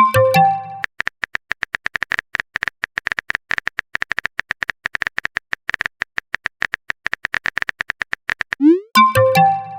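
Rapid, steady run of phone-keyboard typing clicks, several a second. A short chiming message alert sounds at the start, and again near the end after a quick rising pop.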